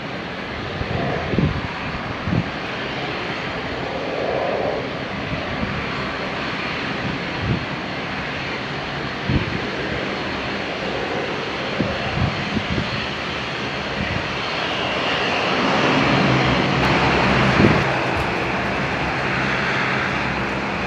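De Havilland Canada Dash 8-400 turboprop running as it taxis: a steady propeller and turbine drone that grows louder in the last few seconds. A few short thumps come through on top.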